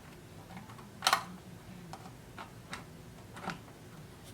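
About half a dozen light clicks and taps of plastic being handled as an Apple Watch charging cable is plugged in and the watch set on its charger, with a louder double click about a second in.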